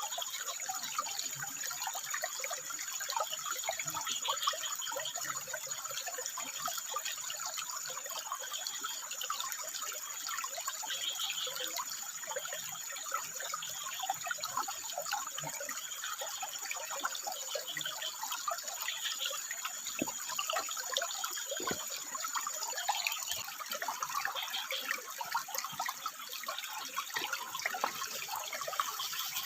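Water trickling and splashing over rocks, a steady rushing without pause. A thin, high steady tone sits above it and stops about three-quarters of the way through.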